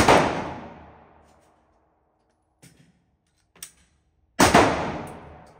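Two gunshots about four and a half seconds apart, one right at the start and one near the end, each ringing out for about a second. A couple of faint clicks fall between them.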